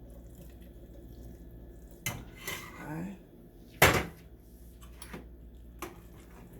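A metal utensil or container knocking and clinking against a cooking pot a few times while vegetables are added, with one sharp clank about four seconds in.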